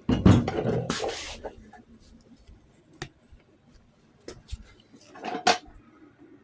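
Handling noise: a burst of rustling and clatter for about the first second and a half, then a few scattered knocks and clicks.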